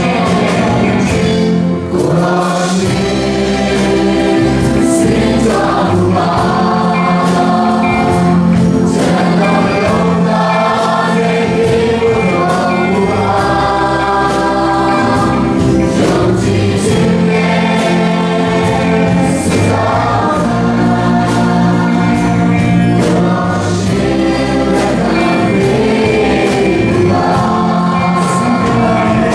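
Worship team of many voices singing a praise song together into microphones, with held sung notes. A live band with drums and guitars plays along.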